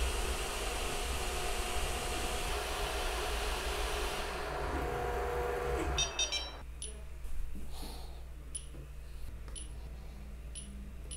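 Wuxn WXR 3D printer running a print: its cooling fans whir while the stepper motors give shifting tones as the print head moves. About six seconds in this gives way to quiet, with a quick run of clicks and then short high beeps, one every second or so, as the printer's touchscreen is tapped.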